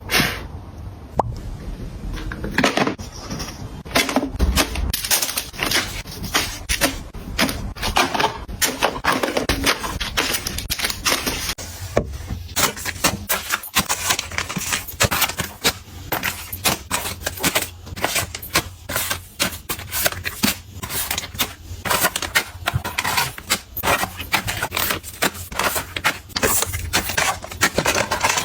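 Small hard objects being handled, tapped and set down in quick, irregular succession: a steady stream of clicks, taps and light clatter.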